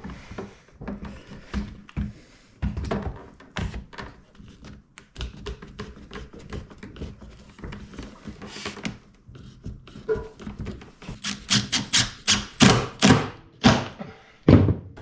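Bar clamps being moved and tightened along a wooden rail: an irregular string of clicks and knocks, with a quick run of louder sharp knocks about two thirds of the way through.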